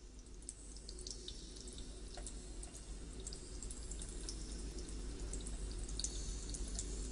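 Rain falling, with scattered drops dripping, growing gradually louder.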